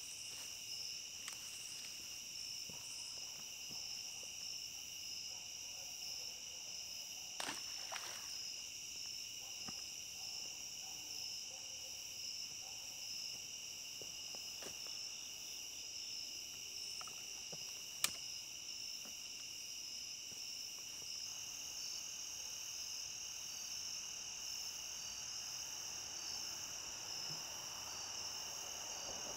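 Steady chorus of night insects, crickets among them, in several high bands, one of them pulsing in a fast chirping rhythm. A couple of light knocks about a quarter of the way in and one sharp click about two-thirds of the way through.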